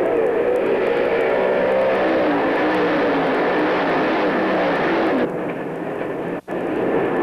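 Engines of a pack of dirt-track race cars running at speed around the oval, several pitches overlapping and wavering, some falling away as the cars pass. The sound thins out about five seconds in, with a brief break in the recording shortly after.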